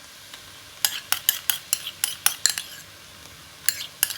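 A utensil clicking and scraping against a frying pan as tuna filling with mayonnaise is mixed, over a faint steady hiss. There is a quick run of about a dozen ticks a little under a second in, then a few more near the end.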